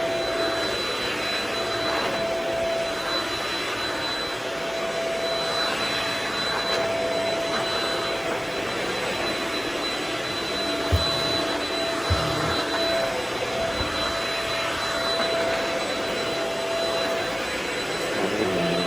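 Vacuum cleaner running steadily over a carpet, a constant rushing noise with a steady whine. Two short knocks come about eleven and twelve seconds in.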